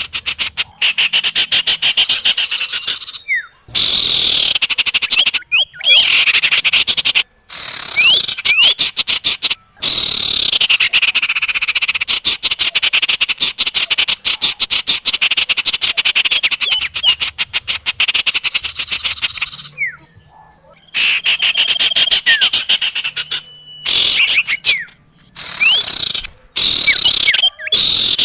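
Small songbirds calling in a trapping lure recording of sirtu and common iora: long, very fast, buzzing trills, high-pitched, broken by short pauses, with brief rising whistled notes in between.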